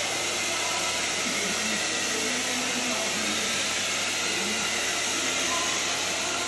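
Handheld hair dryer blowing steadily, an even rushing noise.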